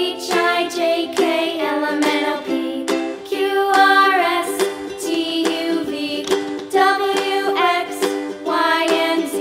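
Background children's music: a melody of short pitched notes over a plucked-string accompaniment.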